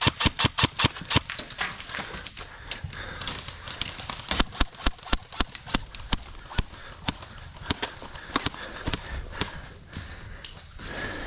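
Airsoft guns firing: a quick string of sharp shots at about five or six a second at the start, then scattered single shots and short strings for the rest of the time.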